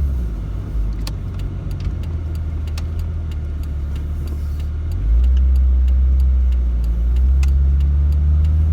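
A 1999 Jeep Cherokee XJ on the move, heard from inside the cabin: a steady low engine and road drone that gets louder about five seconds in. Scattered small clicks and rattles run through it.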